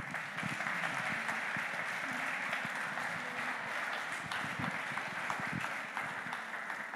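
Audience applauding, many hands clapping in a dense stream that fades near the end.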